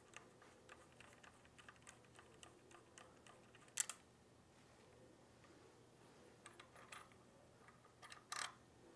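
Faint quick ticking and clicking of the handlebar stem clamp's bolt being unscrewed and worked free by hand, with a louder click just before four seconds in and another near the end.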